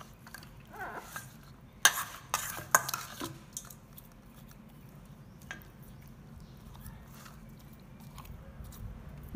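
Metal spoon clinking and scraping against a stainless-steel bowl as a marinated chicken is turned and rubbed with seasoning. A cluster of sharp clinks comes about two seconds in, then only a few quieter taps.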